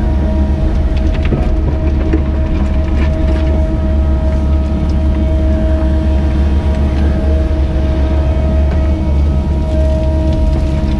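Caterpillar 307E2 mini excavator heard from inside its cab, the engine running steadily with a high whine on top while the machine digs and swings buckets of soil. Faint knocks come now and then.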